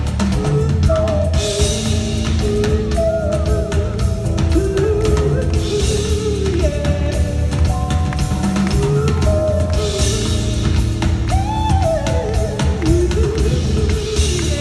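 Live band music: a drum kit and bass under a wavering melody line, with a wash of cymbals about every four seconds.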